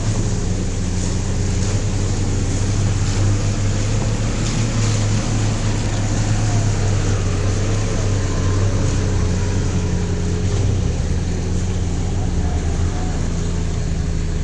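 Off-road vehicle engine running steadily, a low, even drone with rumbling noise over it.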